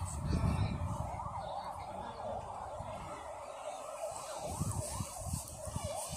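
A siren yelping, its pitch sweeping rapidly up and down several times a second, over low wind and handling rumble on the microphone.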